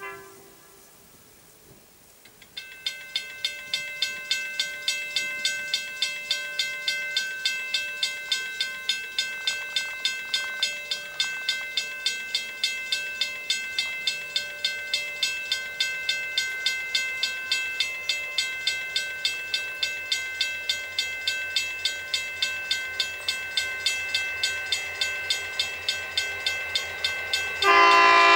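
Level crossing bell ringing in an even rhythm, about three strikes a second, starting about two and a half seconds in as the grain train approaches. Near the end the lead diesel locomotive, C class C510, sounds a loud chord horn.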